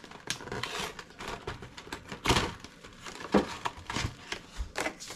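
A cardboard box of Super Dickmann's chocolate-coated marshmallow treats being torn open by hand, with the foil liner inside crinkling. It comes as a run of sharp crackles, the loudest about two seconds in.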